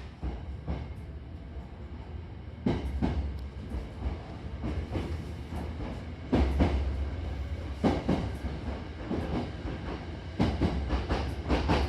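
Hankyu Imazu Line commuter train running between stations, with a steady low rumble and its wheels clacking over rail joints, the knocks coming in close pairs every few seconds.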